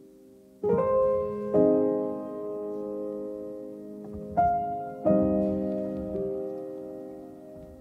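Slow background piano music: four chords struck one after another, each left to ring and fade.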